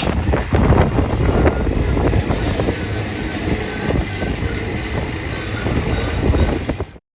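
WorkyQuad SSQ 21 mini skid steer loader working: mechanical running noise full of irregular knocks and rattles. It cuts off abruptly near the end.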